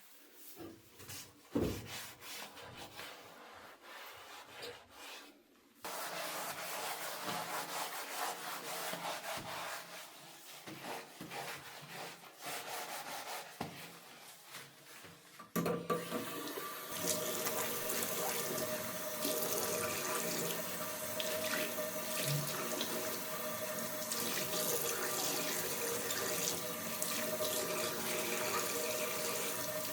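Bathroom sink being washed: a few seconds of rubbing and small knocks, then the tap is turned on about six seconds in and water runs into the basin. From about halfway the flow is fuller and louder, and it keeps running steadily.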